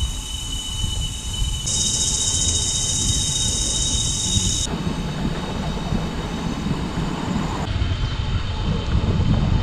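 Tropical cicadas calling: a loud, shrill buzz switches on about two seconds in and cuts off sharply a few seconds later, over steady high-pitched insect tones, with a low rumble underneath.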